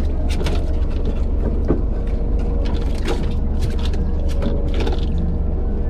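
Steady low rumble of a fishing boat's engine, with a run of light mechanical clicks and rattles over it.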